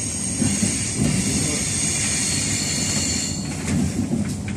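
Electric passenger train running close past, with a low rumble and a steady high whine. From about three and a half seconds in come a series of sharp clicks.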